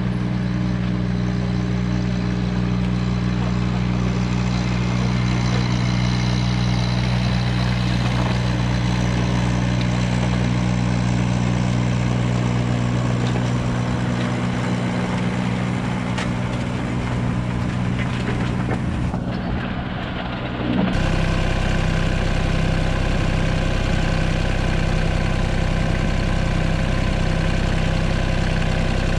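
1999 John Deere 35ZTS mini excavator's diesel engine running steadily, with its cooling fan turning. The fan is now properly driven by a new crankshaft pulley, and the engine stays barely warm. The tone of the running shifts abruptly about two-thirds of the way through.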